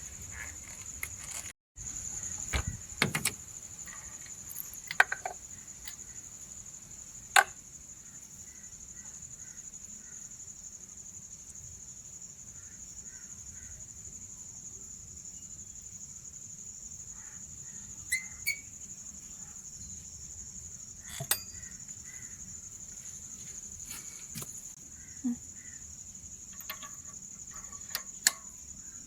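Crickets chirping in a steady high buzz, with scattered sharp clicks and knocks of hand tools working on a spark plug. The sound cuts out briefly near the start.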